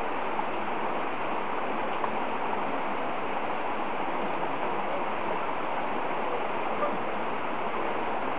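Flowing water from a stream, a steady even rushing.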